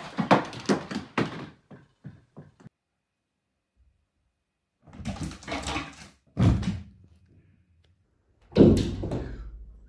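A quick run of knocks and clatter, then a short silence, then two heavy thuds. The second thud, near the end, is the loudest and has a short ringing tail.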